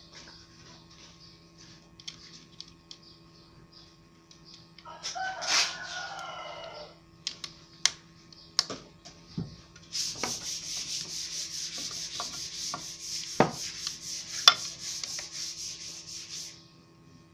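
A rooster crows once about five seconds in. Later comes a rhythmic scraping, about six strokes a second, with a few sharp knocks of hand tools on the planer's metal body; the louder knocks come near the middle of the scraping.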